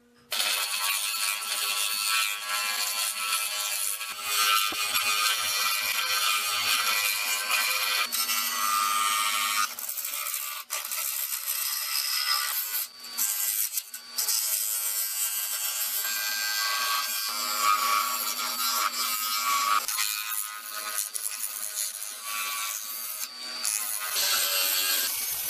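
Wood lathe spinning a wood-and-resin blank while a turning gouge cuts it: a steady, dense cutting noise with rattling, starting abruptly just after the start.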